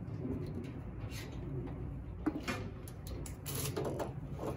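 Faint scattered clicks and rubbing of hands and tools working on engine parts, a few short knocks about two seconds in and near the end.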